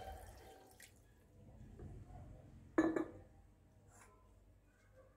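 Water poured from a glass jug onto raw meat chunks in a pot, dribbling and then stopping, with one short sharp knock about three seconds in.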